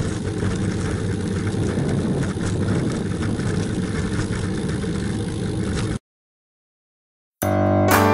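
Steady wind and road rumble on a road bike's handlebar-mounted camera while riding, cutting off abruptly about six seconds in. After a brief total silence, piano music begins near the end.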